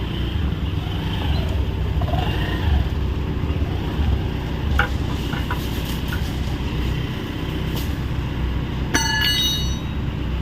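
Hyundai 85A excavator's diesel engine idling steadily, with a few light metallic clicks about halfway through and a brief metallic ring near the end.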